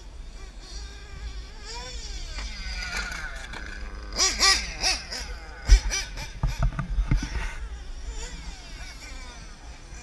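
Radio-controlled off-road cars' motors whining, the pitch sweeping up and down with the throttle. Sharp knocks and low thumps from about four to seven seconds in, loudest just before six seconds, as the camera car bounces over the dirt track.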